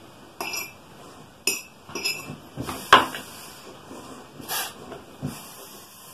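Irregular light clicks and clinks of a hollowed chicken egg, a plastic pump hose and a drinking glass being handled while blowing out the egg, the sharpest click about three seconds in.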